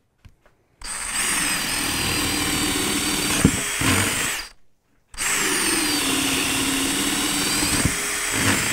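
Cordless drill boring twice into a pressure-treated 6x6 with a 3/4-inch Bosch Daredevil spade bit. Each run is a steady motor whine with the bit chewing through the wood, lasting about three and a half seconds, with a short pause between them and a sharp crack partway through the first.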